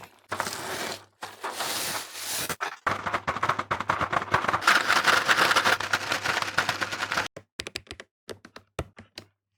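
Plastic packaging rustling, then transparent plastic keycaps clicking and clattering densely for a few seconds, thinning to scattered single clicks near the end.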